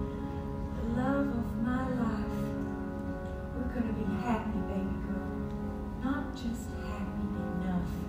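A woman singing a stage ballad over sustained instrumental chords from a live theatre band.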